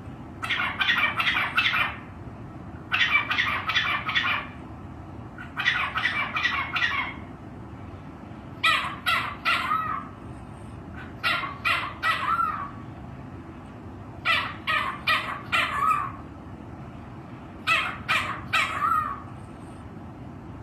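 A pet parrot giving harsh, squawking calls in seven bouts of several rapid notes each, one bout every two to three seconds, over a steady low hum.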